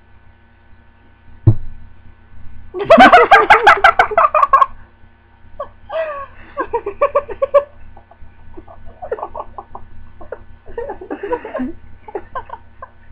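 People laughing: a loud burst of laughter a few seconds in, followed by several shorter bouts of giggling. A single sharp knock comes shortly before the first laugh.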